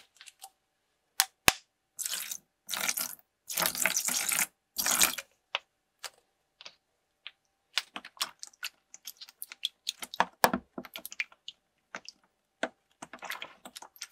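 Liquid poured in several splashing bursts into a clear plastic storage tub, then a hand stirring the bubbly liquid, with many small splashes and clicks against the plastic.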